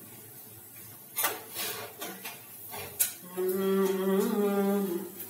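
A few sharp clicks of a knife against a plate as food is cut by hand, followed by a voice holding one steady note for nearly two seconds.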